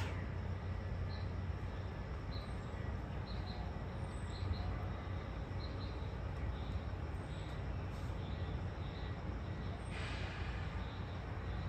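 Low, steady rumble of distant thunder rolling on, with faint short bird chirps scattered over it and a brief brighter rush about ten seconds in.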